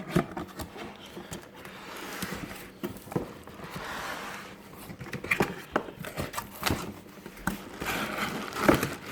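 Cardboard box being opened and its contents unpacked: scraping and rustling with scattered knocks and clicks.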